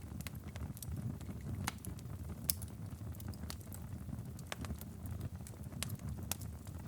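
Wood fire in a fireplace crackling and popping irregularly over a steady low rumble of the flames, with one sharper pop about two and a half seconds in.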